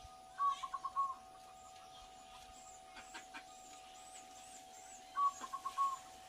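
A bird calls twice, each call a quick run of five or six short notes, with faint high chirps of small birds between the calls and a steady tone underneath.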